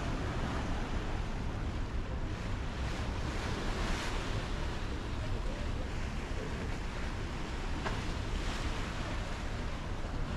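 Steady rushing of wind and sea, with wind rumbling on the microphone.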